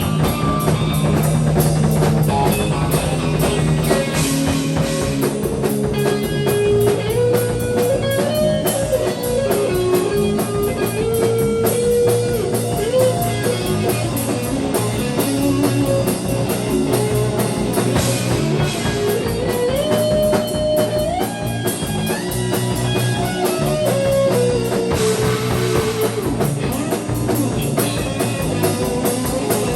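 Instrumental rock band jamming live: electric guitar playing a lead line with bends and slides over bass and a busy drum kit.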